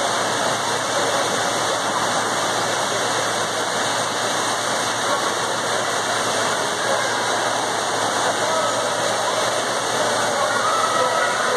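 Indoor swimming pool ambience: a steady wash of water noise with faint, indistinct voices.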